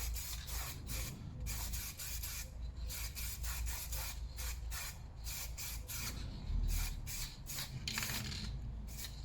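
Aerosol can of silver paint spraying in short, quick bursts, several a second, coating the brake disc hub area against rust. A dull low bump comes about two-thirds of the way through.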